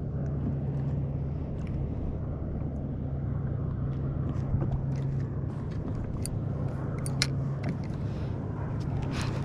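A steady low motor hum held at one pitch, fading out near the end, with a few light clicks and taps over it.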